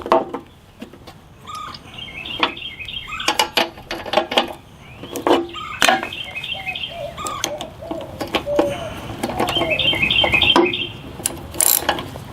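Birds chirping in short repeated series several times, over scattered sharp clicks and knocks of hand tools on a lawn mower engine while its spark plug is taken out.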